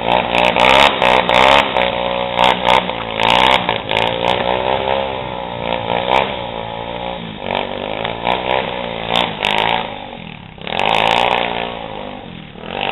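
Off-road motorcycle engine revved hard and eased off again and again, its pitch rising and falling under load. It dips about ten seconds in and comes back loud for a moment after.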